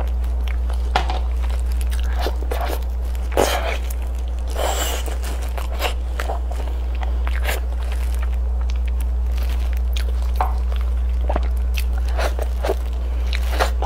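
Close-miked chewing and biting on braised pork, with scattered wet smacks and sharp clicks of the mouth, over a steady low hum.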